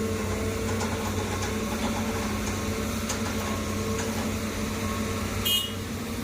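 Excavator diesel engine running steadily with a constant low hum. A brief high-pitched squeak near the end.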